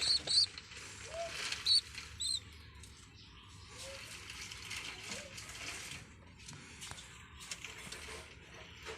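Fantail pigeon squabs squeaking: a few short, high begging peeps in the first couple of seconds, over soft scuffling and rustling of feathers.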